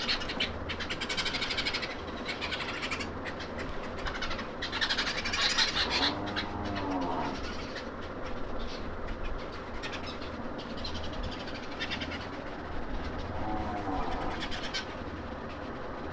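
Birds chirping and trilling in quick high bursts, a morning chorus, with two longer rising-and-falling animal calls: one about six seconds in and one near the end.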